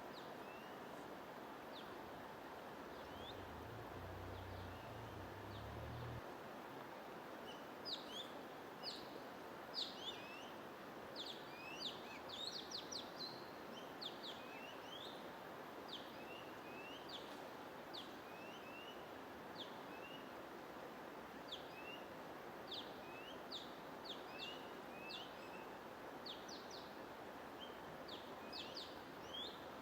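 Songbirds chirping in rapid short notes, starting about a quarter of the way in and continuing on and off, over a steady white-noise hiss. A brief low hum sounds early on.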